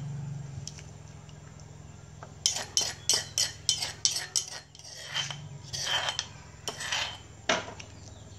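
Metal ladle clinking and scraping against a bowl and the rim of an aluminium cooking pot. A quick run of sharp clinks comes about two and a half seconds in, then a few slower ones, over a steady low hum.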